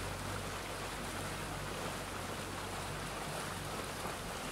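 A motorboat under way on a river: a low, steady engine hum beneath the rush of water past the hull, the hum weakening near the end.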